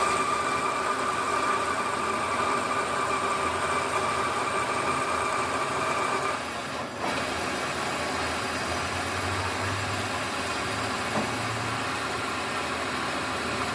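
Workshop machine motor running steadily with a whine for about six seconds, dipping briefly about seven seconds in, then running on with a lower steady hum.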